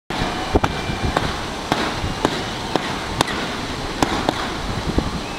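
Fireworks going off in a series of sharp bangs, about two a second, over a steady background hiss.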